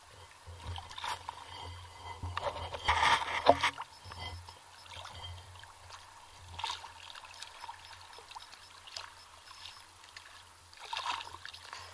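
Sea water lapping and splashing around a camera held at the surface, in several short noisy bursts, the loudest about three seconds in, over a steady low rumble.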